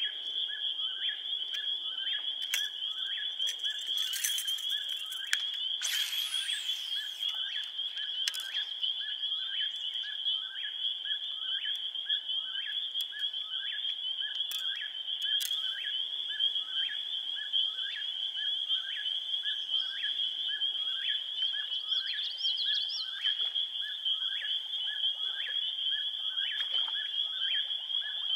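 Frogs calling in a steady, high-pitched chorus, with a regular soft ticking beneath it about one and a half times a second and a brief rushing sweep about six seconds in.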